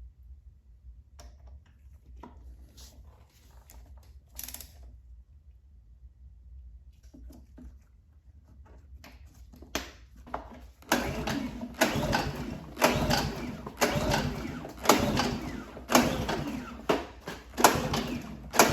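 Honda EU2000i inverter generator being pull-started after a spark plug change: a few faint handling clicks, then from about eleven seconds in the recoil starter is yanked over and over, about once a second, with the engine cranking but not settling into a run. This fits the no-start after long storage that the owner puts down to gummed carburettor jets.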